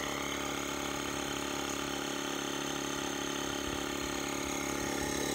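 YANTU dual-cylinder cordless tire inflator running steadily as it pumps air into a car tire, a constant mechanical hum.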